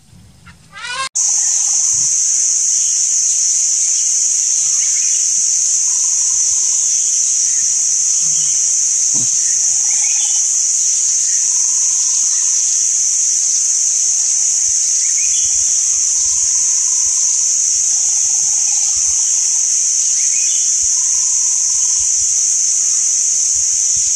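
A loud, steady, high-pitched drone of cicadas starts suddenly about a second in and holds at one level throughout. Faint short bird calls repeat every couple of seconds under it.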